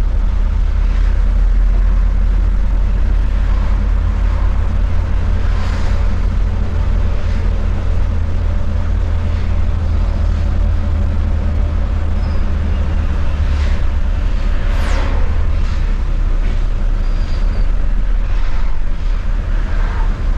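Hyundai coach's engine and road noise heard from the driver's seat while cruising: a steady low rumble with a constant engine drone.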